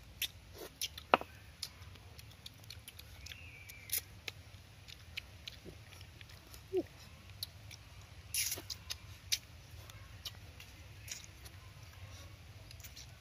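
Close-up eating sounds of a person picking apart and eating cooked tilapia by hand: scattered wet clicks, lip smacks and chewing noises at irregular intervals.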